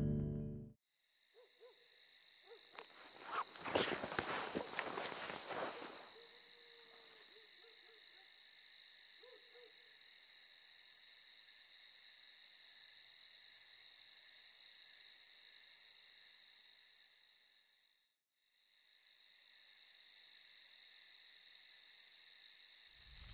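Night ambience of insects chirring in a steady, high drone. A few faint low hoots sound in the first ten seconds, and a short noisy rustle comes about three to six seconds in. The chirring fades out briefly around eighteen seconds in and returns.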